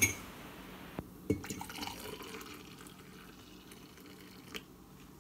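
Water poured from a stainless steel saucepan into a ceramic mug to make coffee, a steady pouring that slowly fades. A few knocks from the pan and mug near the start, and a small one near the end.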